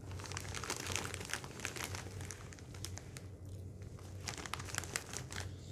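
Plastic snack bag of Cheetos Snowy Cheese Balls crinkling as it is handled: a run of crackles, with a short lull about three seconds in before the crinkling resumes.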